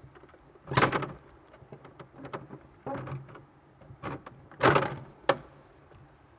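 Handling noise: a few short scrapes and rustles and one sharp click, like parts, panels or wiring being moved about. A faint steady low hum runs underneath.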